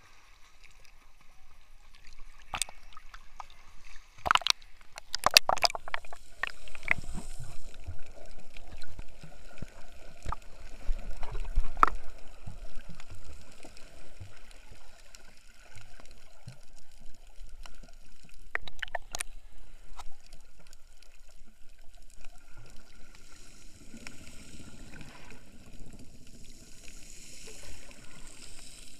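Sea water sloshing and splashing around a camera at the surface, with a few sharp splashes around four to seven seconds in, then muffled underwater gurgling and swishing as the camera goes under.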